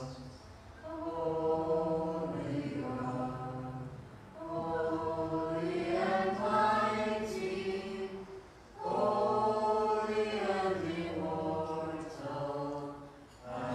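Byzantine liturgical chant sung a cappella in long phrases, with short breaths between them.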